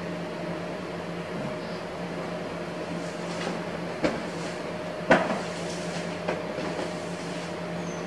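Apartment front door being opened: a sharp click about four seconds in and a louder knock a second later, with light rustling and steps as someone comes in. A steady hum runs underneath.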